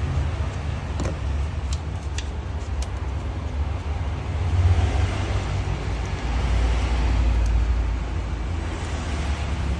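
Steady low rumble with a hiss above it, and a few light clicks between about one and three seconds in.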